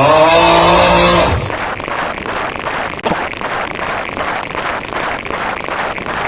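A loud, low pitched call that slides up and then holds for about a second and a half. After it comes a steady rhythmic pattern of about three beats a second.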